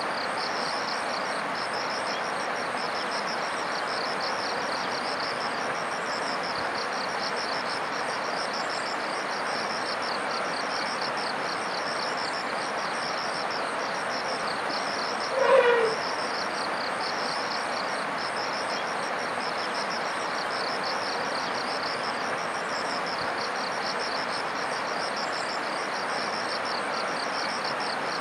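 Forest river ambience: a steady rushing hiss with insects shrilling in a fast pulsing rhythm high above it. About fifteen seconds in comes one short, loud call that falls in pitch.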